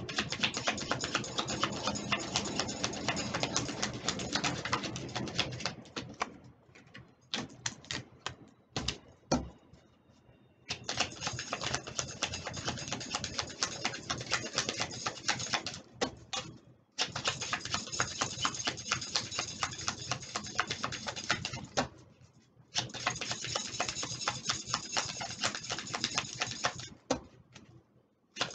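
A deck of oracle cards being shuffled by hand: four spells of fast, dense clicking from the cards flicking against each other, separated by short pauses with a few separate clicks.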